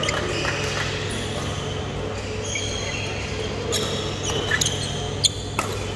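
Badminton rally: rackets striking the shuttlecock in sharp pops, the last few in quick succession in the second half, with court shoes squeaking on the court mat over a steady low hum.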